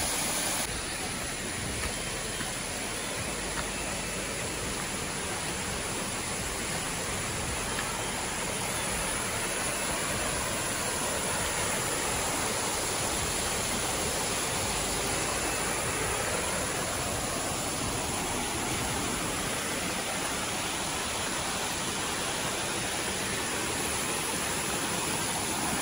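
Rushing water of a stream flowing over rock, a steady even rush.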